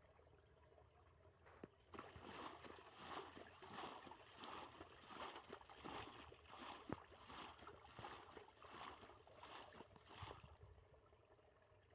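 Muddy water being scooped and flung out of a shallow pit with a steel plate: a run of splashes, about one and a half a second, starting about two seconds in and stopping near the end.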